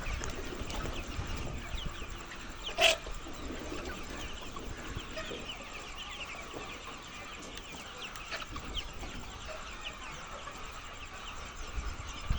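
A large flock of chickens clucking and calling together, many overlapping short calls, with one loud, short sound standing out about three seconds in.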